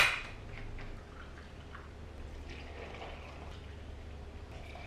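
A sharp click as the carton is opened, then cashew milk poured from a carton into a measuring cup, faint and steady.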